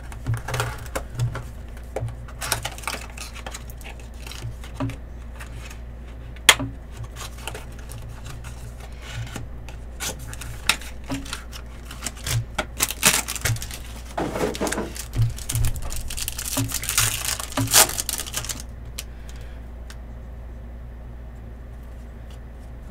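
Trading-card hobby box and pack being opened by hand: scattered clicks and taps of cardboard and plastic being handled, with a stretch of crinkling foil pack wrapper about two-thirds of the way through, over a steady low hum.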